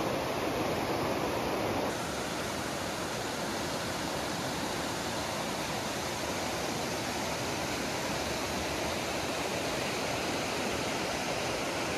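Steady rushing of falling water, an even hiss with no distinct splashes; the level drops slightly about two seconds in.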